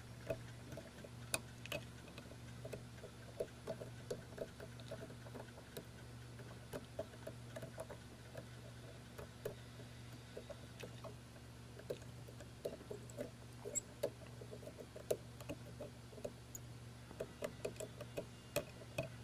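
Black plastic spudger scraping and picking at the small metal contacts on an Olympia InfoGlobe's base, a string of faint, irregular scratches and little clicks, done to clean a dirty, poorly making contact. A low steady hum runs underneath.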